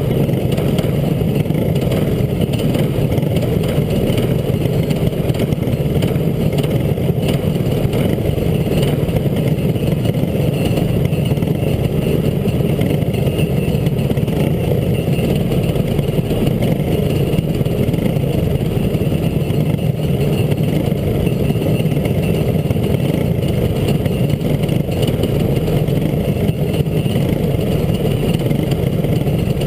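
Go-kart engines running steadily at low speed, close to an onboard microphone, with no revving up or down.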